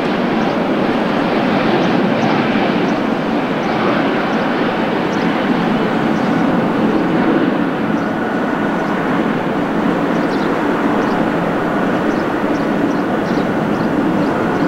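Airbus A320neo's Pratt & Whitney PW1100G geared turbofan engines at takeoff power: a loud, steady jet rush with a faint high whine running through it.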